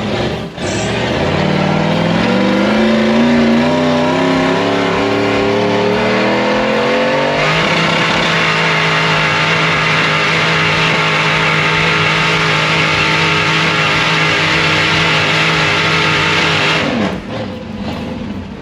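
Off-road vehicle engine revving hard. Its pitch climbs for about six seconds, holds at high revs for about nine, then falls away near the end, typical of a rig spinning its tyres in a mud hole.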